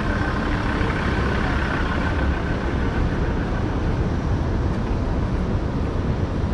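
City street background noise: a steady low rumble of road traffic and engines, with a faint high whine over it for the first three seconds or so.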